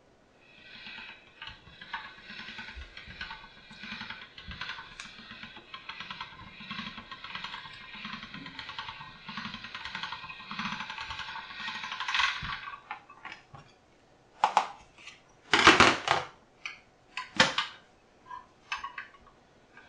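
Hand-cranked all-metal pasta machine being turned, its rollers and gears clicking steadily as egg pasta dough is pressed through on the first pass at thickness setting 2. The cranking stops after about twelve seconds, followed by a few sharp knocks near the end.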